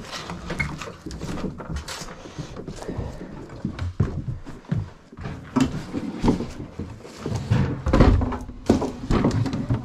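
Scattered knocks, clatter and thumps of junk and household items being handled and moved, with a run of heavier, louder thumps near the end.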